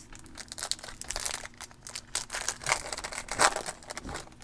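Foil trading-card pack wrapper crinkling and crackling as it is torn open by hand, in quick irregular crackles, loudest about three and a half seconds in.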